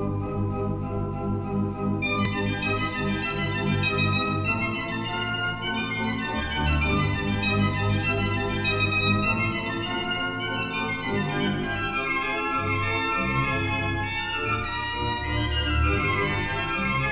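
Pipe organ playing a brisk tune of quick, short notes over a pulsing bass, with higher voices joining about two seconds in and runs of notes climbing and falling. It is heard from a mono LP record.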